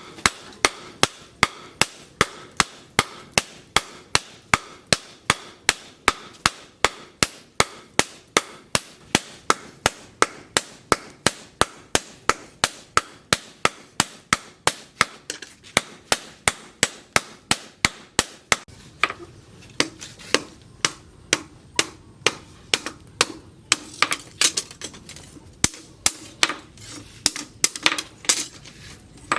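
Blacksmith's hand hammer striking a steel blade on an anvil in a steady rhythm of about three sharp, ringing blows a second. About two-thirds of the way through, the blows become less even.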